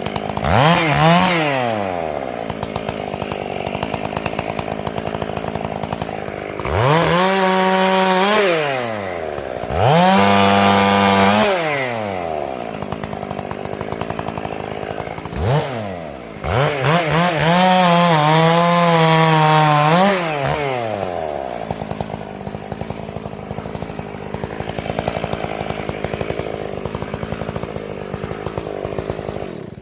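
Stihl MS 461 two-stroke chainsaw, about 76 cc, opening up to full throttle five times, most often held for one to four seconds as it cuts oak, then dropping back to a steady idle between cuts. The chain is a Panther full-skip chain.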